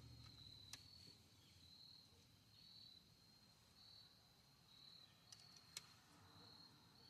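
Near silence with crickets chirping faintly in regular pulses. Two faint clicks, about a second in and near the end.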